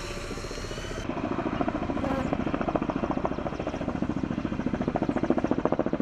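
Helicopter overhead: a rapid, even thudding of the rotor that grows louder, with a high steady whine in the first second.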